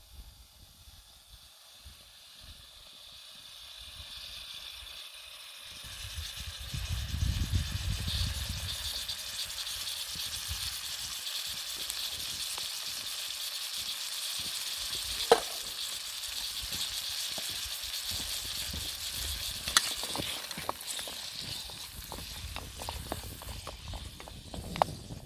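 Oil and halved cherry tomatoes sizzling in a pan over a wood fire in a small camp stove. The sizzle builds over the first few seconds, then holds steady with a few sharp pops. Near the end a wooden spatula stirs the tomatoes with light clicks.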